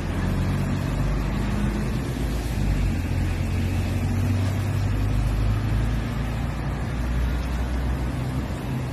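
Road traffic on a busy city road: a steady low rumble of vehicle engines and tyres, swelling a little through the middle.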